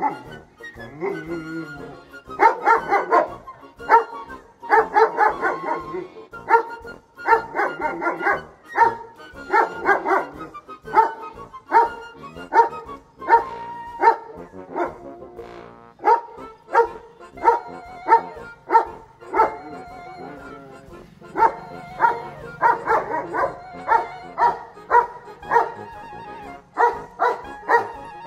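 11-month-old German Shepherd dog barking repeatedly in quick runs of barks, with a couple of short lulls.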